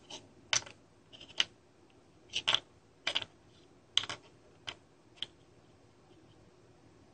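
Small, sharp clicks and taps of a pen and fingers handling an HC-SR501 PIR sensor circuit board, about fifteen ticks, some in quick pairs, over about five seconds.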